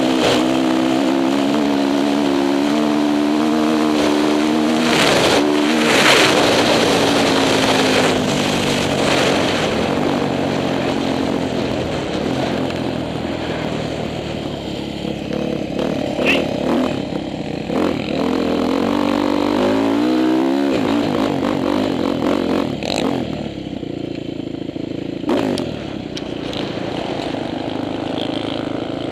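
Honda CRF450 four-stroke single-cylinder dirt bike engine running under load as it is ridden across sand. The revs keep rising and falling, with one long climb in revs that breaks off sharply about two-thirds of the way through.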